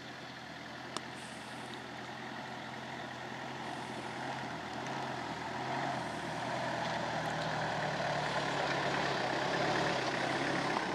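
Pickup truck engine running as the truck drives slowly over a dirt field, growing steadily louder as it comes up close. A single sharp click about a second in.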